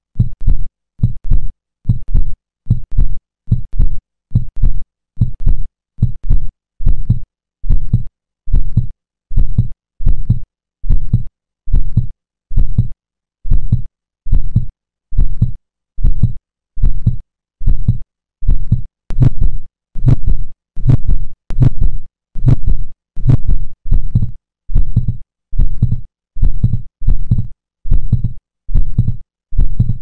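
Recorded human heart sounds: a regular lub-dub of the first and second heart sounds, about one beat a second. In the second half the second sound splits on inspiration, the normal physiological splitting of S2.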